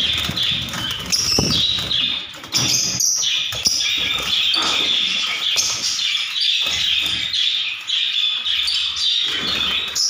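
A flock of masked lovebirds chattering and chirping nonstop in a high, shrill chorus, with low bumps and rumbles mixed in.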